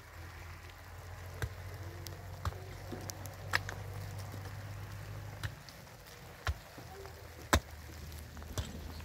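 A hand tool striking stony soil in sharp knocks, roughly one a second. Under it is a low steady rumble that stops about halfway through.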